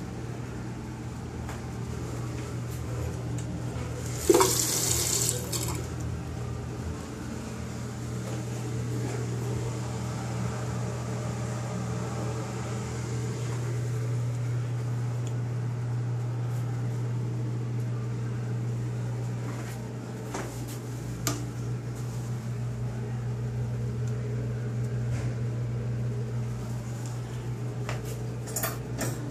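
Steady low hum with a faint hiss, typical of a small restroom's room tone. About four seconds in comes a sharp knock and then a loud rush of noise lasting about a second and a half. A few clicks come near the end.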